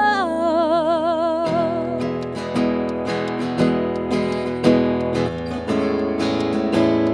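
A woman's voice holds the end of a sung line with a wide vibrato for about two seconds, then acoustic guitar strumming carries on alone, steady chord strokes between vocal lines.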